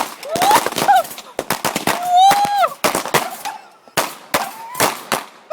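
A fireworks finale going off: a rapid, irregular string of bangs and crackling pops, with several short rising pitched whoops mixed in.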